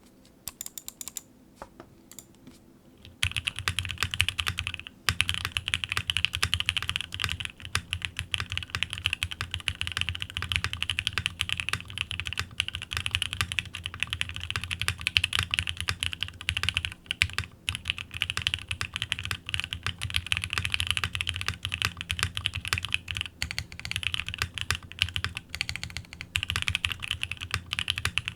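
Typing on a custom gasket-mounted mechanical keyboard with a polycarbonate plate, lubed and filmed Alpaca v2 linear switches and Cherry-profile keycaps. A few scattered key presses come first, then fast, continuous typing starts about three seconds in, with a moment's pause about five seconds in.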